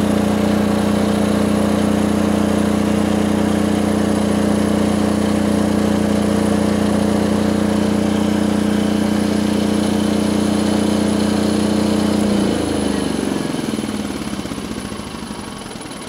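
Aurora silent diesel generator's engine, warmed up to operating temperature, running steadily inside its soundproof cabinet; about twelve seconds in it is shut off and winds down, its pitch and level falling away.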